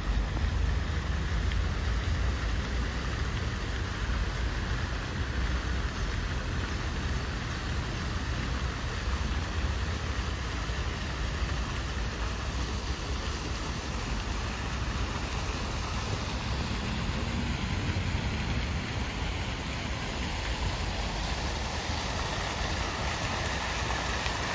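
Steady hiss and splash of a park fountain's water jets falling into a stone basin, with a low rumble underneath.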